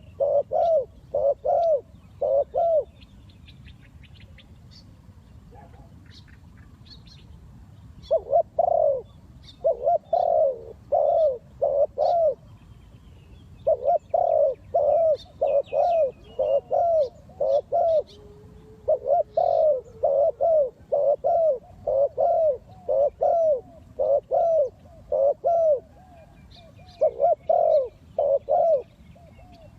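Spotted dove cooing in repeated bouts, each a run of about six to nine quick, even coo notes at roughly two per second, with pauses of a second to several seconds between bouts. Faint high chirps of small birds sound in the background.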